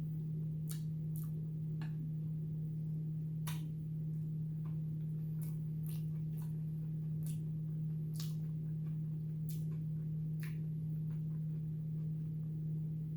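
Eating sounds: scattered soft clicks and smacks at irregular intervals, about one a second, over a steady low electrical-sounding hum.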